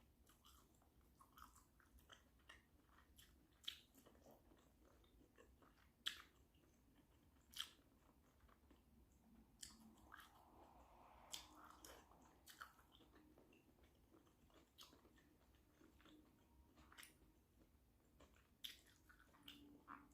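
A person chewing and biting into shrimp boil close to the microphone: faint, with irregular sharp wet mouth clicks, the loudest about 4, 6 and 7.5 seconds in.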